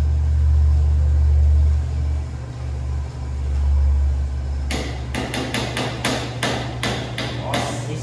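A loud low rumble for the first half, then from about halfway a quick run of sharp taps, several a second, as requeijão is knocked and scraped out of a cup into a frying pan.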